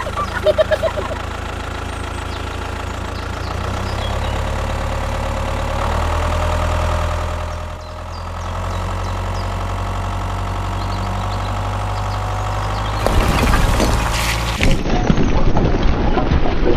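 Tractor engine running steadily with a low hum, growing louder and rougher about three quarters of the way in. Near the end it gives way to a clattering engine sound.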